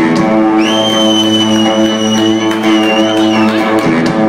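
Live rock band playing loudly, guitars ringing over a steady held chord. A long high sustained note comes in about half a second in and bends downward near the end.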